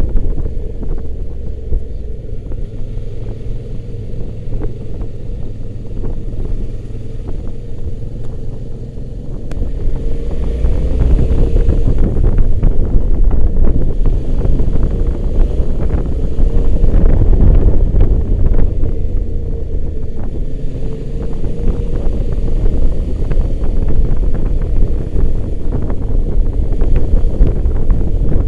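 Motorcycle riding, its engine running under heavy wind rumble on the microphone; the engine pitch rises a couple of times as it accelerates.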